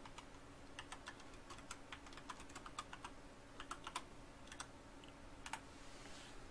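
Faint, quick, irregular computer keyboard keystrokes as a short phrase is typed, stopping about five and a half seconds in.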